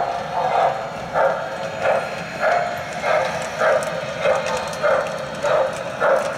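Model steam locomotive's sound system chuffing steadily, about one and a half chuffs a second, as the engine runs along the layout.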